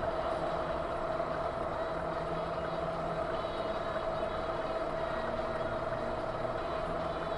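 A vehicle running steadily, with engine and road noise under one constant hum. There is no impact or sudden sound.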